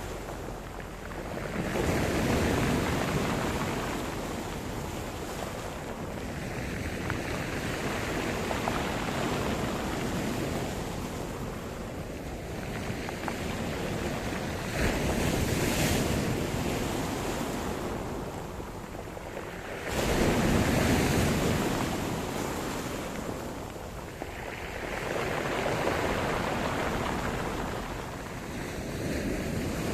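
Sea surf: waves rolling in and breaking one after another, the rush of water swelling and fading every few seconds, with one wave crashing in suddenly about two-thirds of the way through.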